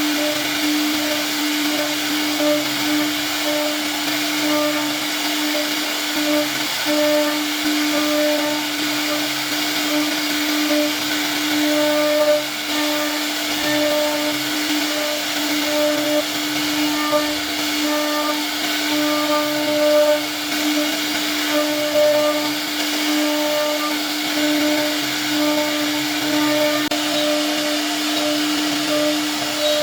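CNC router spindle running steadily as it carves wood, a continuous whine over a rushing hiss, with overtones that come and go as the cutter loads.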